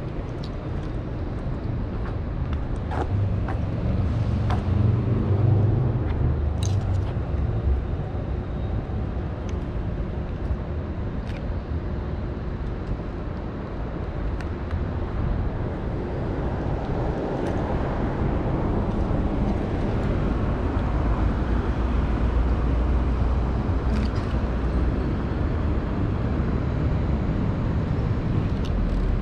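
City street traffic running steadily, with a deep engine rumble a few seconds in and a vehicle swelling past in the middle. A few sharp clicks stand out over it.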